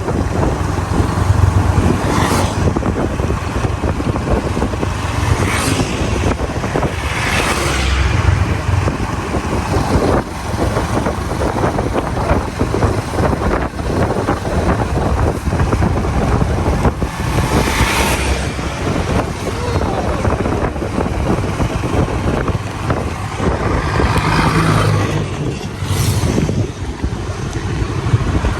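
Steady rumble of a road vehicle in motion, engine and tyre noise, with a few brief rushing swells of hiss.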